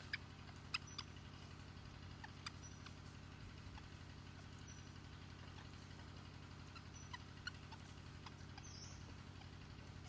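Faint, very short high-pitched animal squeaks, about half a dozen scattered through, over a steady low hum.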